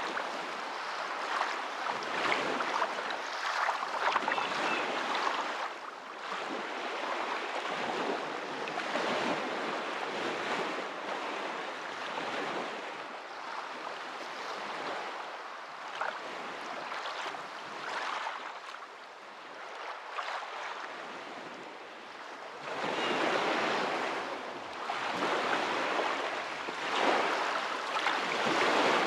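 Waves washing in: a steady rush of water that swells and ebbs every few seconds, loudest near the end.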